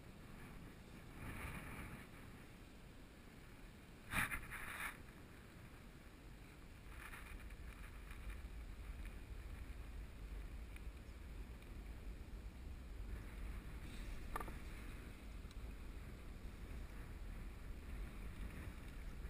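Faint water and wind noise around a sit-on-top kayak: water lapping at the hull with a few brief louder splashes, the biggest about four seconds in. A low wind rumble on the microphone sets in about a third of the way through.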